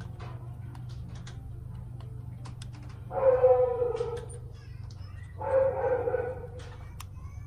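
A pet animal calls twice, each call about a second long with a steady, slightly falling pitch, over scattered light clicks and a steady low hum.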